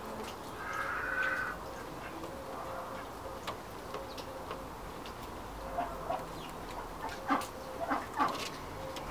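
A young male golden pheasant pecking seed from a person's palm: a scatter of sharp beak taps, bunched toward the end, with a brief fowl-like call about a second in.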